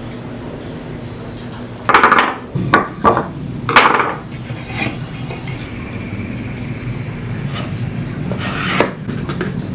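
Wooden box parts and tools being handled on a workbench during glue-and-screw assembly: a cluster of knocks and clatters of wood and metal about two seconds in and another near the end, over a steady low hum.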